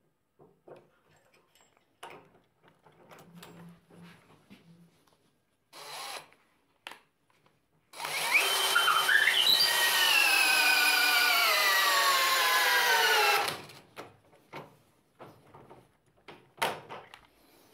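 Original DeWalt 18V cordless drill at maximum torque, tightening a bolt through a digital torque adapter: its motor whines for about five seconds, the pitch falling steadily as the load builds, then stops abruptly, having reached about 36.5 Nm. Light clicks and handling noise come before and after.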